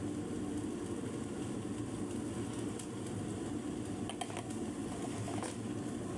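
Chicken breasts cooking in a cast-iron skillet over a gas burner: a steady low rush with a few scattered faint ticks.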